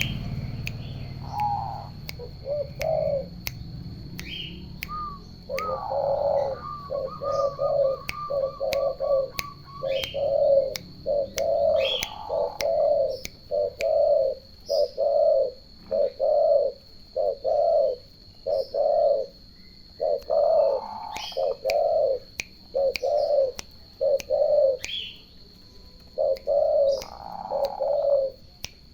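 Turtle doves cooing in a long run of short, low, rolled notes, about one and a half a second, with a brief faster trill a few seconds in. Higher chirps from small birds and a faint steady high-pitched whine sit behind.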